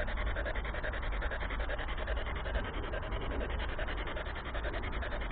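Steady radio static from a handheld spirit box sweeping through stations: a scratchy hiss chopped into rapid, even pulses, with no voice coming through.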